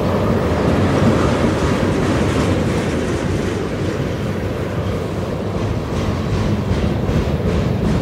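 BNSF freight train's cars rolling past close by: a steady rumble of steel wheels on rail, with a rhythmic clickety-clack of wheels that becomes plainer near the end.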